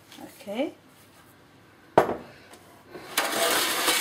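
A single sharp knock about two seconds in, then baking parchment rustling and crinkling loudly as it is handled on a baking tray from about three seconds in.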